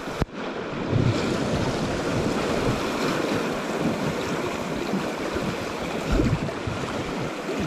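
River rapids rushing and splashing around an inner tube, close to the water.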